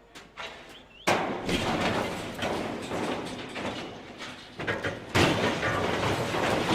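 A sudden loud crash about a second in, followed by continuous rough clattering and banging, with another loud surge about five seconds in.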